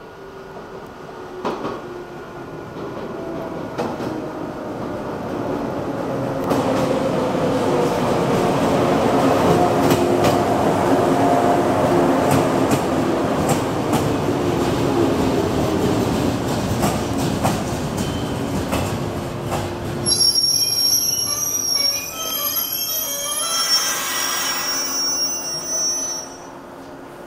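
Shinano Railway 115 series electric train pulling in: the rumble of its wheels and motors builds, with tones falling in pitch as it slows. From about 20 s in, a high squeal sounds for about six seconds as it comes to a stop, then the level drops, leaving a steady hum.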